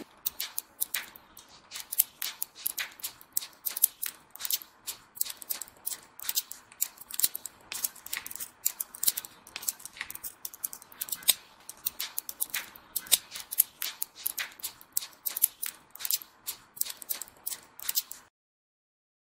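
Small magnetic metal balls clicking sharply as they snap onto one another one at a time, several irregular clicks a second. The clicking stops a little over a second before the end.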